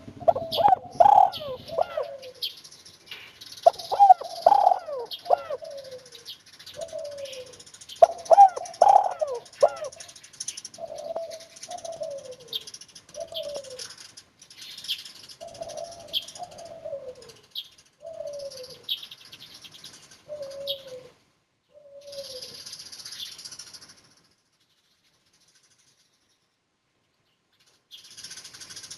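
Spotted dove (tekukur) cooing, a 'kuk 1' songster with a soft, clear kuk: three full song phrases about four seconds apart, then a run of single falling coos about once a second. Small birds chirp faintly in the background. About three-quarters of the way through, all sound cuts out for some four seconds.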